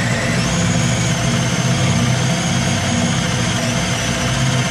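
Cordless drill turning a Forstner bit as it bores a shallow hole into plywood, the motor running steadily with a high whine.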